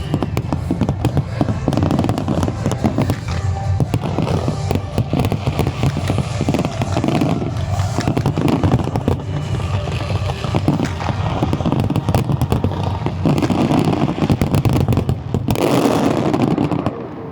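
Fireworks display: a dense, continuous barrage of bangs and crackling, with music playing underneath. A louder hissing crackle swells near the end.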